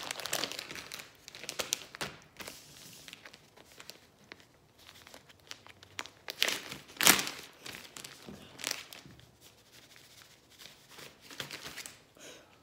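Clear plastic packaging crinkling and rustling as it is handled and pulled open by hand, with occasional tearing. Irregular crackles throughout, loudest a little past halfway.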